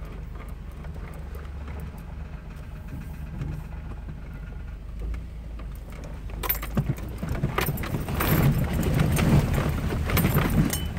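A truck's engine running low, heard inside the cab as it drives a rutted dirt trail. From about six seconds in, loud rattling and clattering of the body and loose items joins in as it goes over rough ground.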